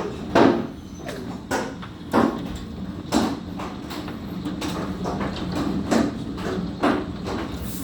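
Large hailstones hitting the house, irregular loud knocks about every half second to a second over a steady patter of hail.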